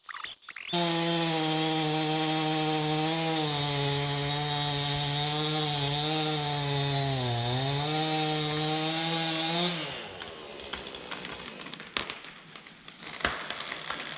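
Chainsaw running at high revs, its pitch sagging under load about seven seconds in as it cuts, then cutting off at about ten seconds. A few faint knocks follow.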